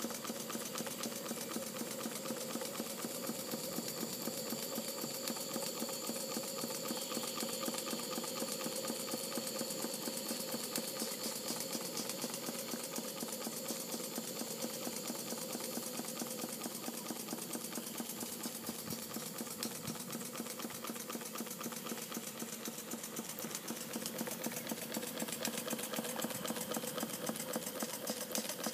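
Model entablature steam engine running steadily at speed, its rapid, even exhaust beats and mechanical clatter going on without a break over a steady hiss.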